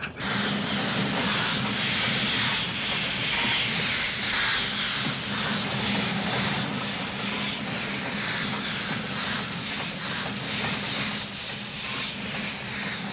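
A steam locomotive running fast, a steady, loud, dense noise of exhaust steam and wheels on the rails.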